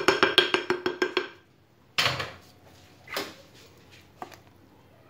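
A metal ladle clinking quickly against a glass mixing bowl of batter, about seven ringing clinks a second, stopping after about a second and a half. Two louder single knocks of the ladle on the bowl follow, about two and three seconds in.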